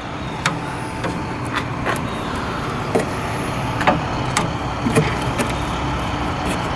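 Cutters snipping through plastic zip ties: a series of sharp clicks, over a vehicle engine running steadily.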